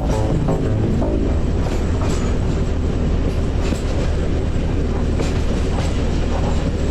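Train running on rails: a steady low rumble with scattered clicks of the wheels over the rail joints.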